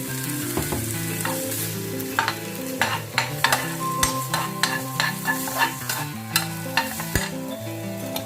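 Beef and seasonings sizzling in a hot frying pan as they are stirred and tossed with a utensil. Sharp clicks of the utensil against the pan come about once or twice a second from about two seconds in.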